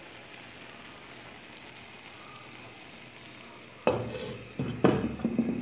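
Faint steady hiss of the tagine cooking on the stove. Then, about four seconds in, the clay tagine lid knocks and scrapes against the dish three times, each knock ringing briefly.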